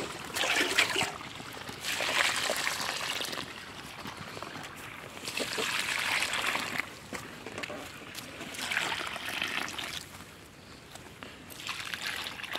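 Liquid fertilizer solution poured onto dry soil at the base of brinjal plants as a root drench, splashing and trickling. It comes in five separate pours, each a second or so long, with short pauses between.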